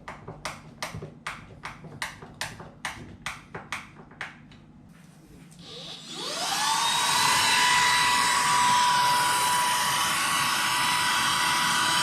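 A run of sharp, evenly spaced clicks, about three a second, for the first four seconds. Then a vacuum cleaner switches on about five and a half seconds in: its motor whines up in pitch and settles into a loud, steady run with a high whine.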